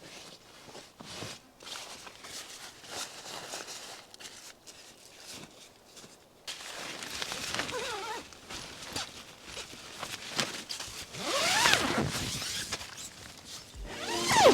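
Rustling and handling of camping gear with scattered clicks, and several zips pulled in the second half.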